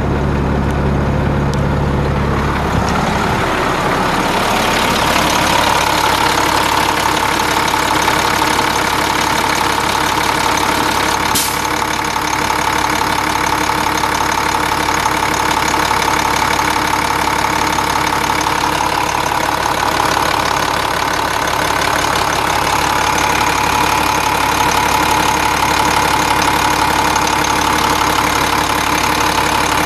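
International DT466 7.6 L inline-six turbo diesel idling steadily, heard up close at the open engine bay.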